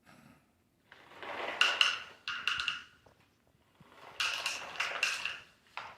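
Frozen chocolate chips clattering as more are added, in two bursts about two seconds apart.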